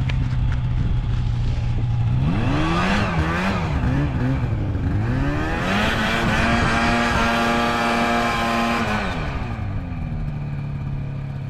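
Snowmobile engine idling, then revved up and down unevenly, held at high revs for a few seconds and dropped back to idle near the end, as the sled sits stuck in deep snow.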